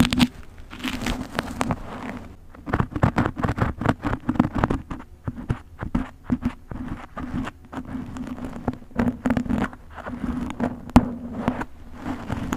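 Scratching and crackling of a thin pointed parting tool drawn through a mannequin head's hair and across its scalp, in quick irregular strokes, over a steady low hum.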